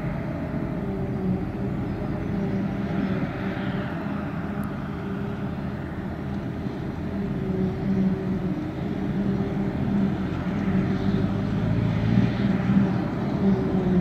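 Claas Jaguar 870 self-propelled forage harvester running steadily at work, chopping a grass swath and blowing it into a trailer, with the tractor pulling the trailer alongside; a continuous engine drone with a hiss over it, growing a little louder in the second half.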